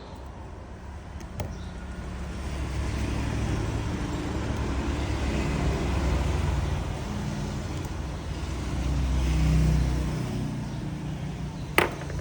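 Low rumble of a passing road vehicle, swelling to its loudest about three-quarters of the way through and then fading, with a sharp click near the end.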